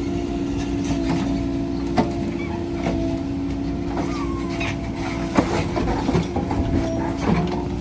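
Heavy diesel engine running at a steady speed, with a few sharp metallic knocks, one about two seconds in and a louder one past halfway.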